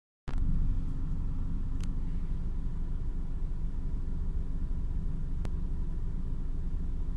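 Steady low rumble of a car's engine and running gear heard from inside the cabin, with a faint steady hum and two faint clicks.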